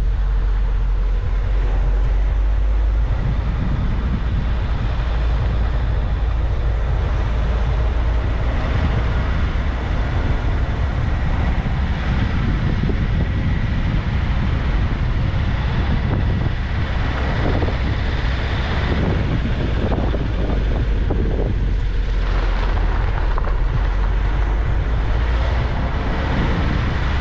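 Suzuki Vitara driving along at low speed: a steady low rumble of engine and tyres, with wind buffeting the microphone over it.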